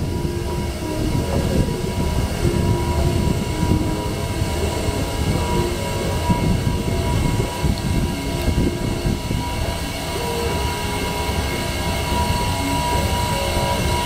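1991 Mitsubishi J-series escalator running, heard from on its moving steps: a steady mechanical rumble with a thin, steady tone above it.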